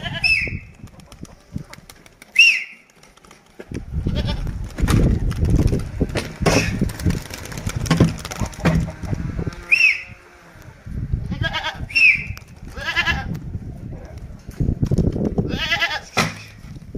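Goats bleating: a few wavering cries in the second half, over scattered knocks and low rustling. Several short, high chirps come through as well.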